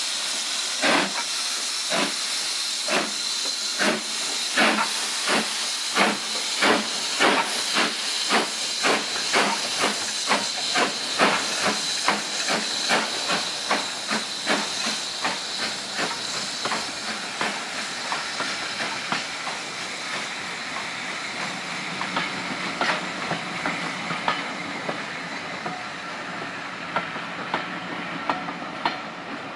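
BR Standard Class 9F steam locomotive 'Black Prince' pulling away: sharp exhaust beats, about one a second at first, quicken to about three a second as it gathers speed, over a steady hiss of steam. The beats fade as it passes, leaving the coaches rolling by with a few light rail clicks near the end.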